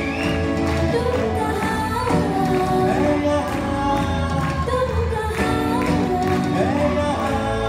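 A woman singing a melody over a live band of keyboard, electric guitars and drum kit.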